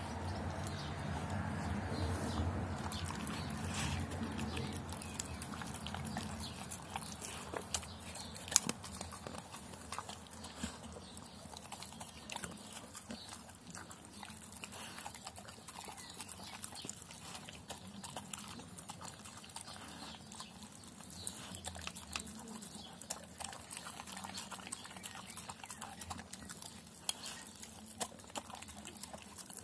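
Doberman pinscher eating from a stainless steel bowl of rice and chicken: wet chewing and mouthing with scattered sharp clicks. A low rumble underlies the first few seconds and fades out.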